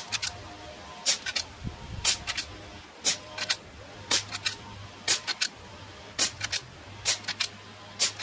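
Suppressed .25 calibre PCP air rifle (Skout Epoch) firing over and over, in sped-up playback: about nine sharp shots roughly a second apart, each followed by two or three quick clicks of the action being cycled.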